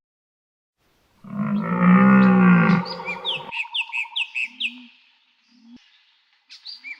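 A low, drawn-out animal call lasting about two seconds, then a quick series of short, high, falling bird chirps.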